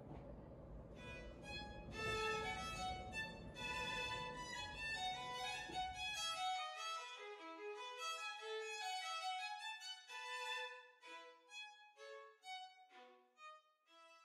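Violin music playing a melody of single notes, which thins out to a few sparse notes near the end. Under the first half a low background rush runs, then cuts off about six and a half seconds in.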